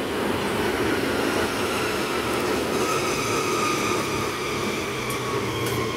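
Steady low rumble of a running vehicle engine, with a whine that comes in about two and a half seconds in and dips slightly in pitch near the end.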